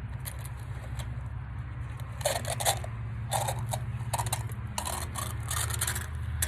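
Re-Grip rubber grip being tightened onto a wheelbarrow handle by pulling its inner core out: a series of short scraping, crackling pulls in two clusters, one a couple of seconds in and one near the end, over a steady low hum.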